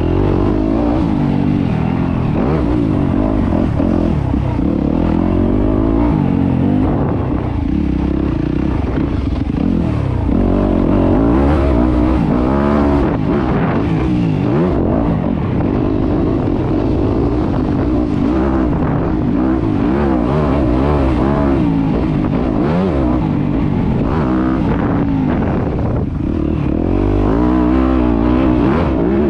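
Yamaha YZ250F dirt bike's four-stroke single-cylinder engine being ridden hard, its revs rising and falling over and over, every second or two, as the throttle is opened and shut and the gears change.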